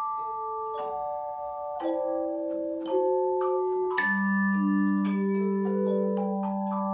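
Tone chimes played by an ensemble: a slow melody over chords, each note struck cleanly and left ringing so that several overlap, with a low chime entering about four seconds in and sustaining.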